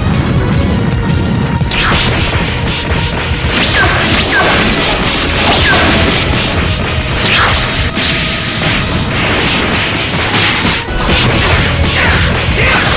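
Cartoon fight sound effects: a rapid run of punches, impacts and whooshes over dramatic background music, starting about two seconds in.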